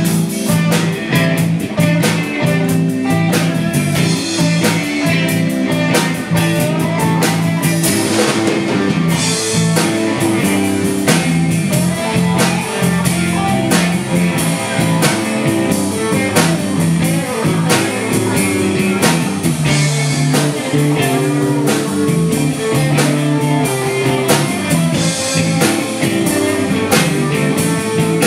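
Live rock band playing a blues-rock instrumental stretch: electric guitars over bass guitar and a drum kit keeping a steady beat.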